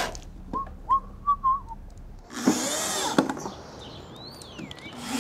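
Cordless drill working a screw into a plywood crate panel, spinning up and winding down in a short burst a little over two seconds in and starting again at the end. Before it, a few short whistled notes.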